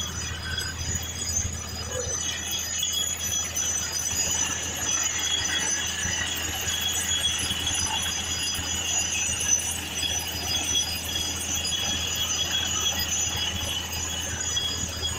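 Truck-mounted borewell drilling rig running steadily while drilling, a constant low drone with a steady, high-pitched metallic whine over it.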